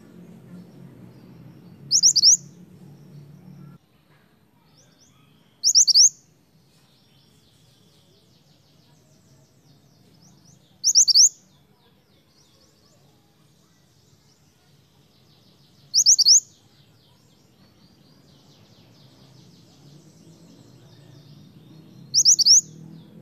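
Scarlet minivet (mantenan) giving five short, sharp, high whistled calls, each a quick double stroke, spaced about five seconds apart, with faint high twittering between them.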